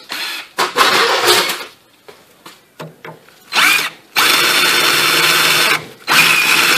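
Cordless drill with a 21/64-inch twist bit drilling out a broken M8 bolt in rusty steel, making room to tap for a Heli-Coil thread insert. A few short scraping handling noises come first; about halfway through the motor spins up with a rising whine and runs steadily, stops briefly, then runs again.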